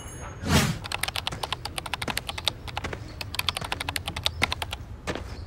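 A short whoosh about half a second in, then rapid keyboard typing: a dense run of sharp key clicks with a brief pause partway through.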